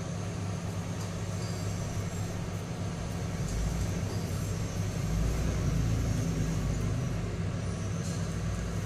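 Steady low mechanical hum, with a deeper rumble that swells about three and a half seconds in and again from about five to seven seconds.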